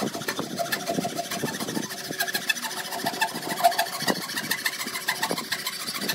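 Hand saw cutting through a stack of clamped wooden boards, the blade rasping back and forth in repeated strokes with a squeaky edge.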